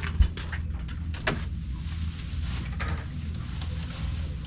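Fresh-cut grass rustling as it is tipped from a plastic basket into a wooden feed trough, with a low thump at the start and a sharp knock about a second in, over a steady low rumble.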